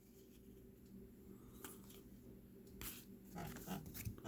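Faint handling of trading cards: a few soft flicks and rubs as cards are turned over, a little busier near the end, over a low steady hum.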